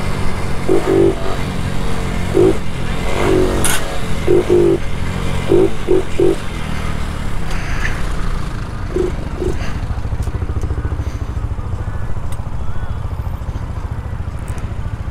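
Honda Biz 125's single-cylinder four-stroke engine running as the bike slows to a stop, then idling steadily for the last five seconds or so. A string of short bursts sounds over the first six seconds.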